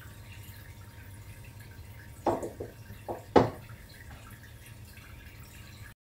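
Cloth-wiping of a kitchen counter: a low steady hum with four short sharp taps between about two and three and a half seconds in, the last the loudest.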